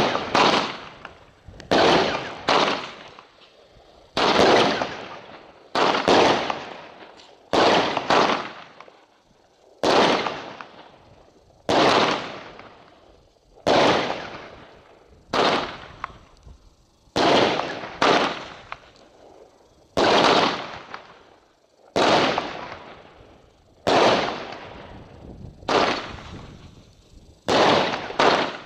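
Weco Poison 16-shot consumer fireworks battery firing, about one shot every two seconds. Each shot is a sharp bang followed by a tail that fades over about a second.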